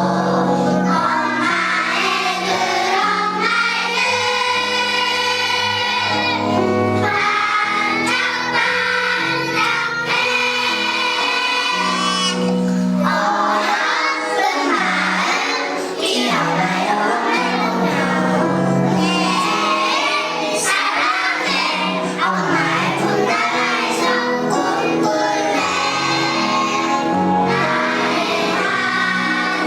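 A kindergarten children's choir singing together over instrumental accompaniment, with some long held notes.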